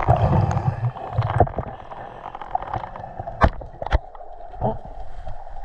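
Muffled underwater river sound heard through a submerged camera: a churning, gurgling rumble of current. Two sharp clicks come a little past the middle.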